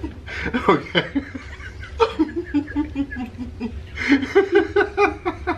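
Several people laughing and chuckling, with quick rhythmic runs of ha-ha's about two seconds in and again about four seconds in.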